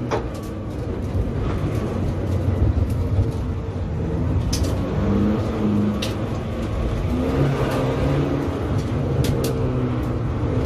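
SEAT Ibiza TDI's turbodiesel engine running under load on track, heard from inside the cabin, its pitch stepping up and down several times over steady road and tyre noise. A few short sharp clicks sound over it.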